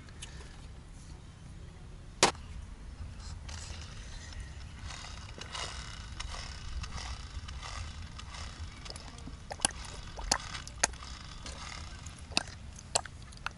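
Bottles and small metal bowls handled on a metal camp table. There is a sharp click about two seconds in, then a run of clicks and knocks in the second half, over a steady low rumble.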